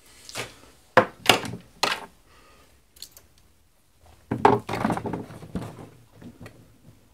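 Handling noise on a wooden work board: three sharp knocks in the first two seconds, then a rattling clatter a little past halfway, as a cable and small objects are picked up and set down.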